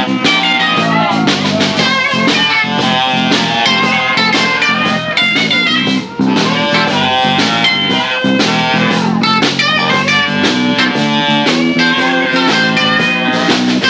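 Live blues-rock band playing an instrumental passage, led by guitar over bass and drums.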